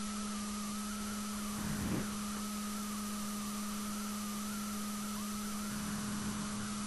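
Room tone without speech: a steady electrical hum with a faint, slightly wavering higher whine over hiss.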